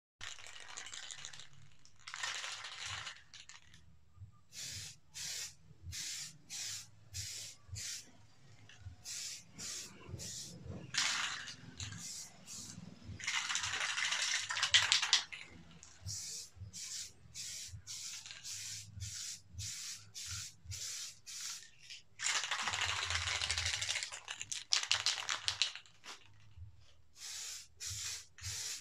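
Paint spraying in many short hissing bursts, often about two a second, broken by a few longer passes of one to two seconds.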